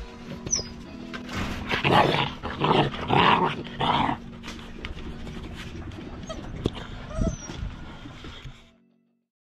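Central Asian Shepherd puppies giving several short barks in quick succession between about two and four seconds in.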